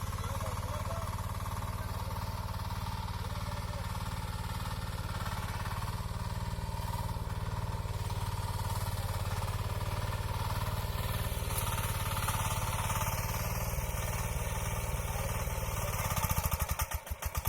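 Small engine of a hand-guided ploughing machine running steadily under load. Near the end its sound briefly flutters and dips before it picks up again.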